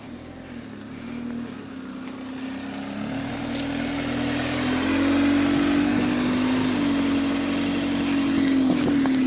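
Single-deck diesel bus (Go-Ahead London SE66, an Alexander Dennis Enviro200) driving up and passing close by. Its engine drone grows louder, steps up in pitch a few times and is loudest about halfway through. The bus is running in limp-home mode, with reduced engine power.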